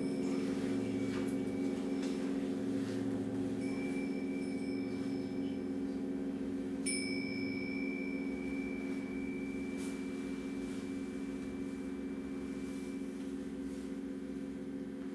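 Large Himalayan singing bowls ringing on in a low, many-toned hum with a slow beat, fading gradually. A pair of tingsha cymbals is struck over it, giving a bright high ring about four seconds in and a sharper one about seven seconds in that rings for several seconds.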